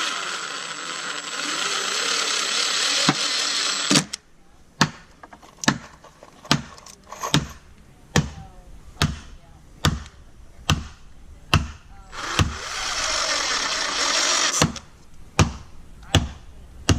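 An electric power tool runs steadily for about four seconds, then a hammer strikes wood in an even rhythm, a little more than one blow a second. Around twelve seconds in the power tool runs again for about two seconds before the hammering resumes.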